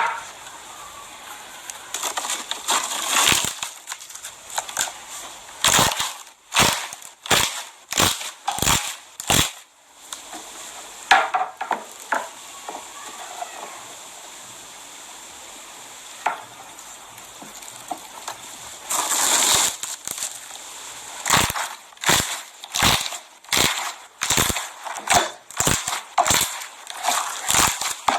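Slime being pressed and squeezed by hand, giving off sharp irregular pops and crackles as trapped air bursts out, with a quieter spell in the middle.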